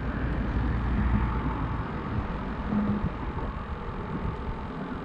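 Steady low rumble of road traffic on the causeway, swelling slightly as vehicles pass.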